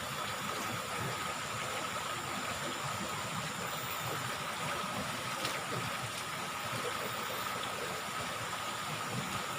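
River water flowing, a steady rushing with no breaks.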